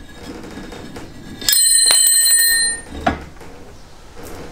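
A cast-iron brake disc, a BMW E46 rear rotor, rings like a bell after a metal knock about one and a half seconds in, as it is worked loose from the hub. The ring holds several clear high tones and is cut off after just over a second. A dull knock and handling noises follow.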